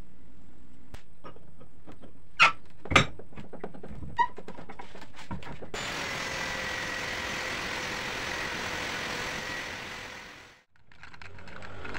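A few sharp knocks, then an angle grinder's cut-off disc cutting through a rusty steel threaded rod, running steadily for about five seconds before stopping abruptly near the end.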